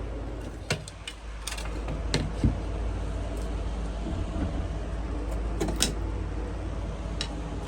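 Scattered sharp clicks and knocks from hand work on the boat's interior wall paneling, a few in a few seconds, over a steady low hum.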